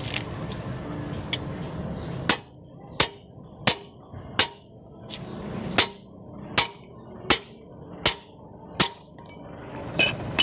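Hammer blows on a steel lug wrench fitted to a truck's wheel nut, about ten sharp metallic strikes a bit more than one a second, beginning about two seconds in: hammering to break loose a tight wheel nut.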